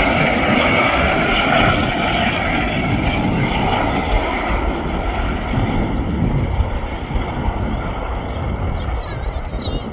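British Airways Airbus A380's four Rolls-Royce Trent 900 turbofans running at approach power as the jet passes low over the runway to land: a steady jet noise with a whine on top, loudest in the first couple of seconds and then easing off slowly.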